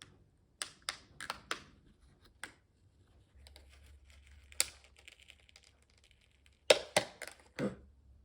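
Plastic packaging of RAM modules clicking and cracking as it is pried open: a dozen or so sharp snaps at uneven spacing, with the loudest cluster about seven seconds in.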